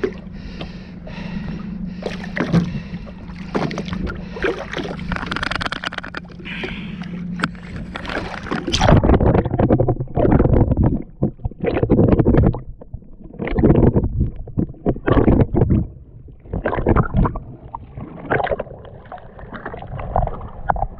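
Boat motor humming steadily, with a hiss over it, for the first nine seconds or so; then loud, irregular, choppy bursts of noise take over until the end.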